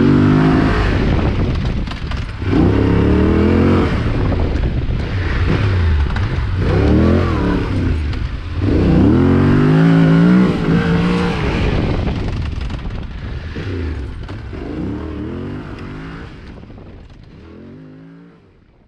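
Yamaha Ténéré 700's parallel-twin engine under way, the throttle opened and closed again and again so the pitch rises with each burst of acceleration. The sound fades away over the last several seconds.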